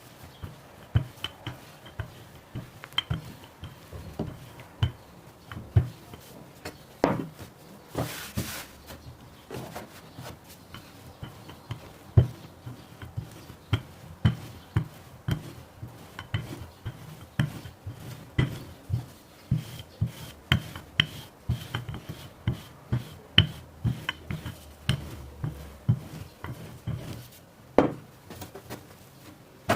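Kitchen handling sounds: irregular light knocks and taps of hands and utensils on a work surface, about one or two a second, with a brief rustle about eight seconds in.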